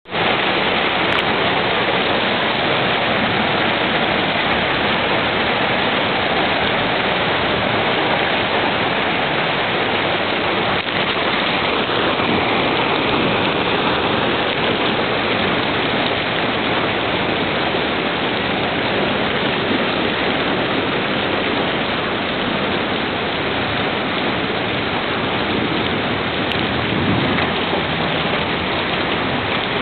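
Heavy rain falling steadily onto rooftops and a flooded street, an even, unbroken hiss.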